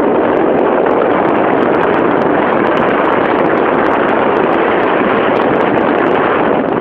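Steady, loud rushing noise of a vehicle in motion, with wind buffeting the microphone and light ticks and rattles over it.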